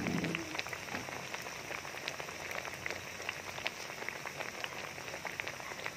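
Batter-coated banana slices deep-frying in hot oil, sizzling steadily with a dense run of fine crackles.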